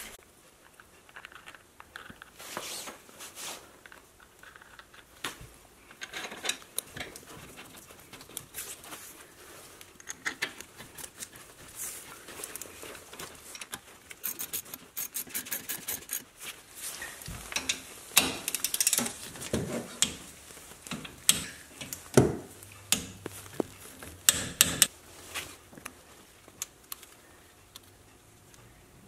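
Metal clicks, taps and short scrapes of brake caliper parts, pads and hand tools being handled while front brake pads are fitted, with a quick run of even clicks about halfway through and a few sharper knocks later on.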